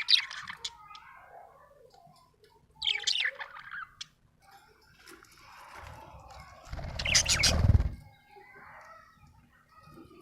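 Budgerigar chirping and warbling in short bursts, with quieter chatter between them. The loudest burst, about seven seconds in, comes with a low rumble underneath.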